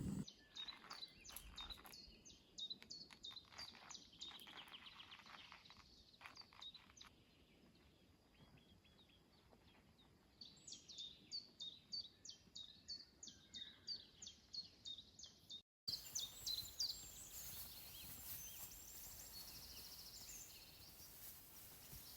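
Faint birdsong: a small bird repeats short high chirps, about three a second, in two bouts. After a sudden cut a steady soft hiss takes over, with a few more chirps.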